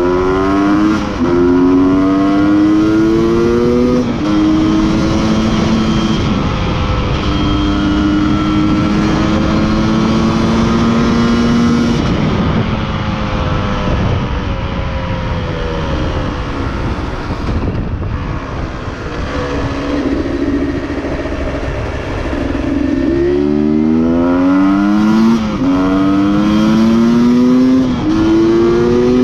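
Beta RR two-stroke enduro motorcycle engine revving under hard acceleration. The pitch climbs and drops back with each gear change. In the middle it runs at lower, steadier revs, then near the end it climbs through several quick shifts again.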